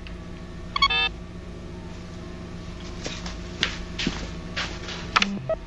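Sci-fi computer-console sound effects over a steady electronic hum. A short pitched electronic beep comes about a second in, scattered clicks and ticks follow, and a brief low tone sounds near the end.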